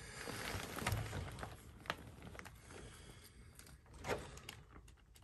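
Faint handling noises from work on a galvanized metal vent pipe: scattered light clicks, with a soft knock about four seconds in.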